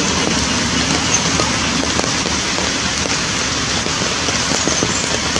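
Rain falling steadily on muddy ground and puddles, a constant even hiss.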